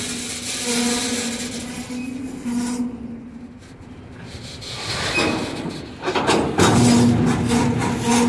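A cut of freight cars rolling slowly past, steel wheels on the rails, with a steady low tone that fades in and out. It quietens about three seconds in, then grows louder from about six and a half seconds in, with rumble and sharp knocks.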